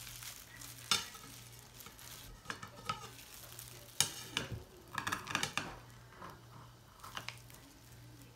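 Kitchen scissors cutting through a crisp egg-fried instant-noodle cake on a ceramic plate: crunchy crackling as the fried noodles give, with sharp clicks as the blades close or touch the plate, loudest about a second in and about four seconds in. A faint steady low hum runs underneath.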